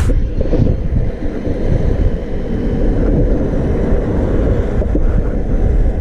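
Wind buffeting the microphone of a moving body-worn action camera: a loud, steady low rumble.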